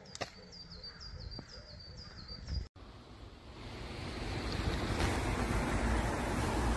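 A small bird chirps over and over, about four short high notes a second. Then, after a break, a steady rushing noise of road traffic and wind on the microphone swells and holds.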